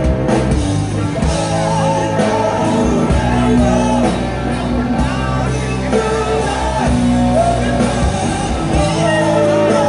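Live rock band playing loudly through a large PA, with a sung vocal line over guitars and drums, heard from within the audience.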